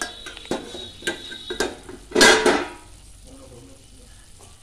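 Metal lid lifted off a stainless steel kadai: a few light metal clinks, then one louder, longer clatter about two seconds in, with the chicken sizzling faintly in the pan afterwards.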